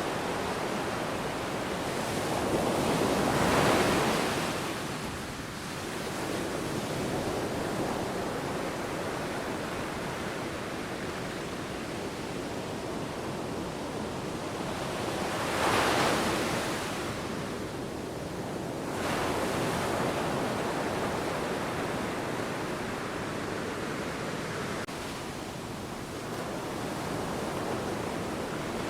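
Sea waves washing on the shore over a steady rush of surf, with two louder swells, one a few seconds in and another about halfway through.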